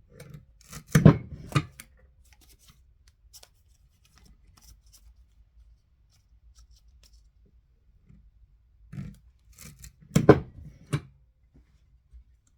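A few sharp clicks and snips from hands working small craft materials, in two short clusters: one about a second in and another near the end.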